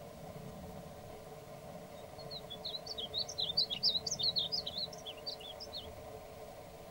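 Male painted bunting singing one rapid, warbling song phrase of quick, jumping high notes, starting about two seconds in and lasting about four seconds.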